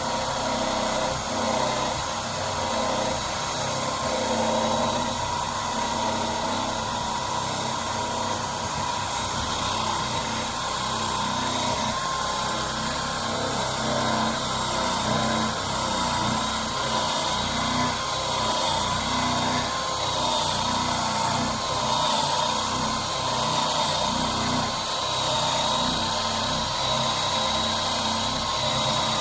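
Workpro 12-volt cordless 3-inch sander/polisher running steadily on a plastic headlight lens, a continuous motor whine that wavers slightly in pitch as the load on it changes.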